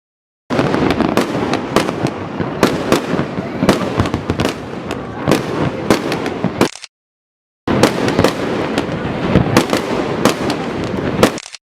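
Fireworks display: many sharp bangs and pops in quick succession, broken by a gap of dead silence about seven seconds in.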